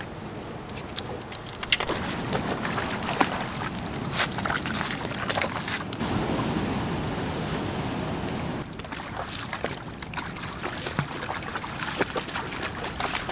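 Shallow tide-pool water sloshing and splashing as a person and a dog wade through it, with many small, sharp splashes.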